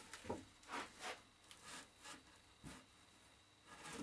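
A few short, faint scrapes and light knocks of an 18 mm plywood board being shifted and lined up against a wooden stand to check its fit.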